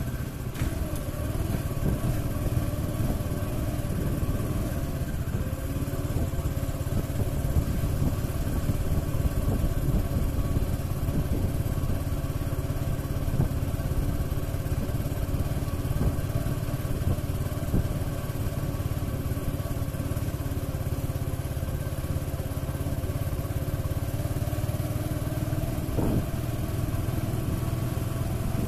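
TVS Apache RTR 180's single-cylinder four-stroke engine running steadily at low speed while the motorcycle is ridden slowly, its pitch staying even throughout.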